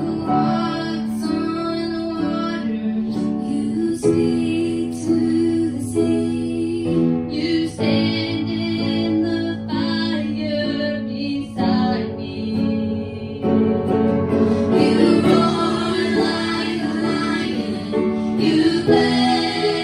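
A woman and two girls singing a gospel song into microphones over instrumental accompaniment, heard through the church's sound system.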